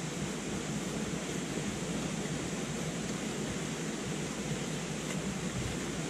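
Steady rushing of river rapids, an even, unbroken noise of fast water.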